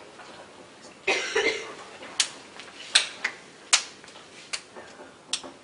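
A person coughs once about a second in, followed by about six sharp, separate clicks and knocks over the next few seconds.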